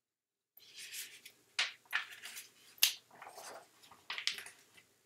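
A page of a picture book being turned by hand: soft paper rustling and sliding, broken by three or four sharp crisp crackles as the page is flipped over and pressed flat.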